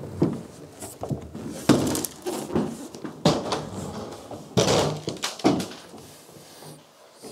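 Handling noise of a polyester (fibreglass) car bonnet being carried in and laid down on a felt-covered stand: several knocks and bumps with rustling scrapes in between.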